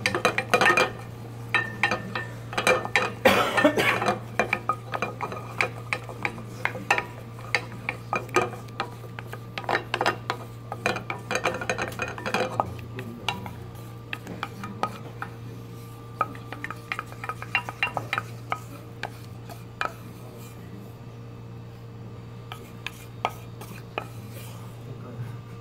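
Wooden spatula scraping and tapping against an aluminium saucepan as a browning roux is stirred constantly to keep it from scorching; the strokes come thick at first and thin out after about halfway. A steady low hum runs underneath.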